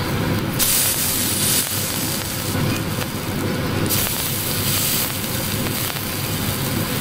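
Kebab patties sizzling in an oiled grill pan, a steady hiss that grows brighter for about a second starting just after the beginning, and again about four seconds in.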